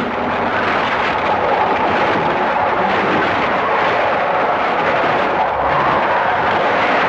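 Bakuton monster roar sound effect: a loud, harsh, rasping roar that runs on unbroken at a steady level.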